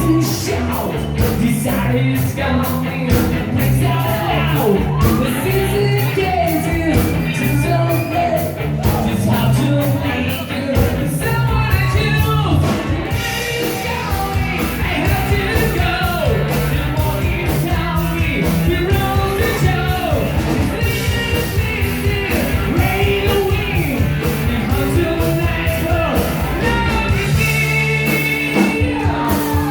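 Rock music with a singing voice over a steady drumbeat.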